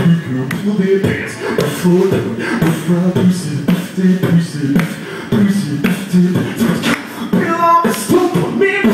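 Beatboxing amplified through a handheld microphone: fast, rhythmic mouth-made drum clicks over a low hummed bass line, with a rising vocal note near the end.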